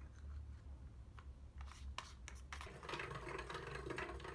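A few faint sharp clicks from a drill bit being seated in a keyless drill chuck. About halfway through, a steady scratchy rattle sets in: a homemade hand-cranked drill's plywood gears turning as its bit bores into plywood.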